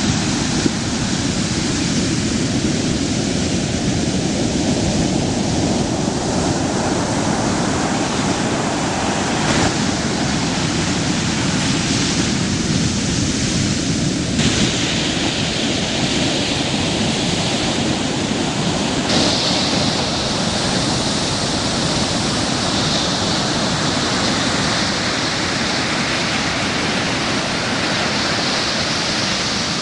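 Ocean surf breaking and washing in, a steady rushing noise. Its hiss changes suddenly in tone several times.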